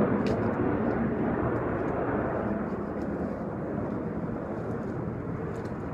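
A steady low rumbling noise, such as distant aircraft or traffic makes, slightly louder at first and easing a little later. A few faint small clicks sound over it.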